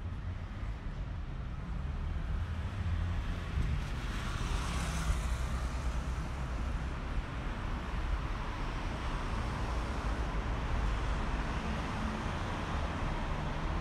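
Road traffic on a city street: steady engine rumble and tyre hiss from passing cars, with a vehicle passing close about four seconds in and another swelling past near the end.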